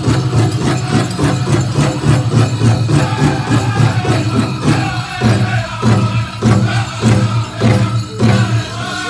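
Powwow drum group singing a chicken dance song over a steady, even drumbeat.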